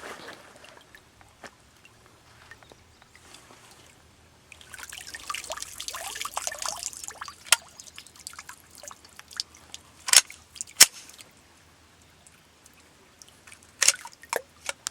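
Water trickling and pouring for a couple of seconds, then a few sharp cracks from a Glock pistol, the two loudest close together about halfway through.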